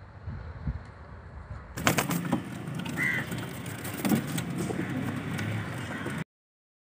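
Domestic pigeons cooing and moving about at their cage, with sharp clicks and knocks starting about two seconds in. The sound cuts off suddenly near the end.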